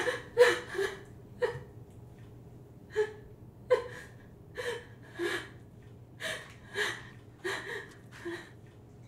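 A woman crying in short gasping sobs, roughly one a second. The first sobs are the loudest and they grow weaker toward the end.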